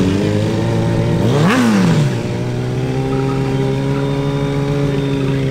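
Sport motorcycle engine revved at the drag strip start line: a quick rev up and back down, then held at a steady high rev for about three seconds.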